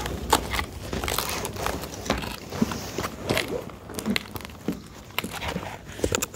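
Hurried footsteps crunching and scuffing over rough ground, mixed with irregular rustling and knocking from clothing and the handheld camera.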